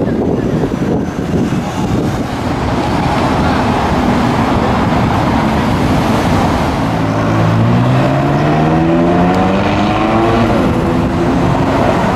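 McLaren sports car's V8 accelerating away from a crossing, its engine note rising steadily for about three seconds in the second half and then falling away, over a steady rush of street traffic.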